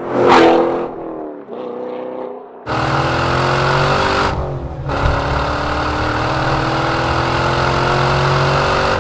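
Chevrolet Corvette C7 Stingray's 6.2-litre LT1 V8 through a Borla S-Type exhaust, driven hard. There is a loud burst that falls in pitch right at the start. From about three seconds in the engine pulls steadily with slowly rising pitch, broken by a brief drop for a gear change about halfway through.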